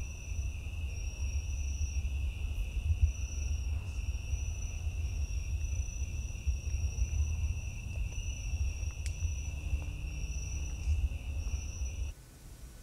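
Crickets chirping in a steady, continuous high trill over a low rumble, both cutting off suddenly near the end.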